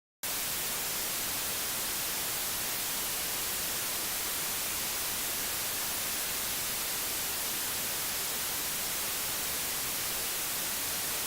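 Steady radio static hiss that cuts in suddenly from dead silence a moment in and holds unchanged, strongest in the high frequencies.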